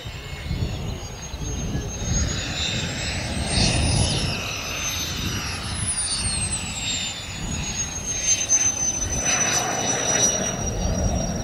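Model jet turbine of a large RC jet whining high, the pitch climbing to a peak about five seconds in, then falling and levelling off as the plane comes in low toward the runway. Gusty wind buffets the microphone underneath.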